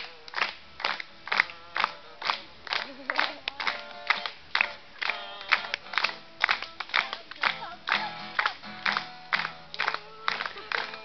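Acoustic guitar strummed in a steady tango rhythm, about two to three chord strokes a second.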